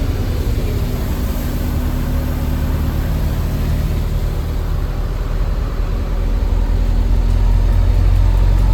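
Camper van driving: steady low engine and road rumble, growing louder near the end.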